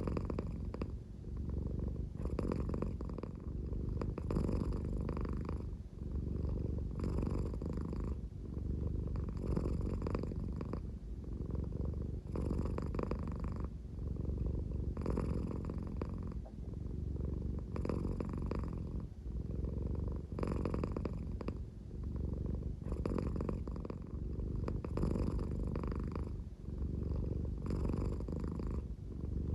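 American Shorthair cat purring slowly, a low snore-like rumble that swells and eases with each breath, about once every two and a half seconds.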